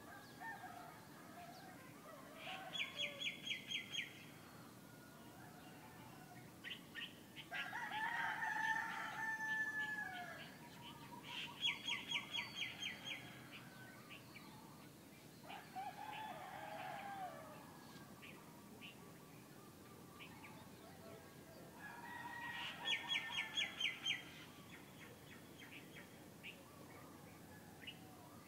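Rooster crowing twice, long pitched calls that drop at the end. Between the crows, a small bird repeats a quick run of even high notes three times, about ten seconds apart. A steady low background noise runs underneath.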